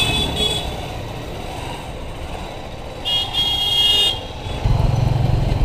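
High-pitched vehicle horn tooting briefly at the start, then a longer toot of about a second about three seconds in. Near the end a motorcycle engine starts running close by, low and steady.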